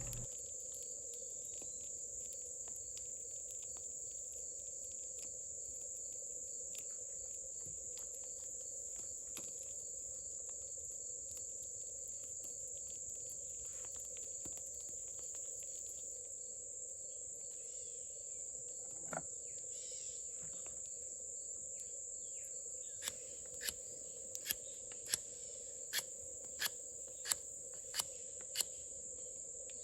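Steady high-pitched insect chirring, crickets or the like, in the background. In the last seven seconds a run of about nine sharp clicks comes, roughly one every two-thirds of a second.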